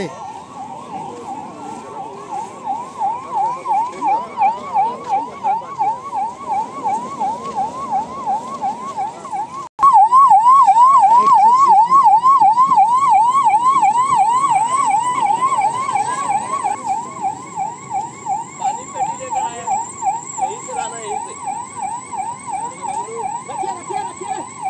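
Electronic siren sounding a fast yelp, a rapidly repeating rising-and-falling wail at about three sweeps a second. About ten seconds in it cuts out for an instant and comes back louder, then slowly fades.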